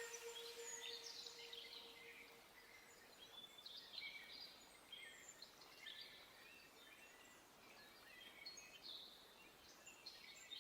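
The last held tone of an electronic dance track fades out in the first two seconds or so. After that, faint, short, high chirps come and go against near silence.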